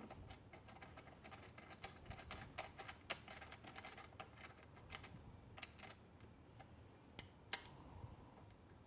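Faint, irregular small metal clicks and ticks of an Allen key turning a bolt as it is threaded into a steel bracket plate, with one sharper click about three-quarters of the way through.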